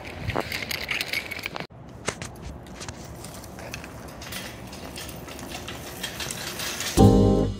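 Light metallic clinks and rattles over a steady outdoor background hiss while walking across a parking lot; loud jazz background music with saxophone starts near the end.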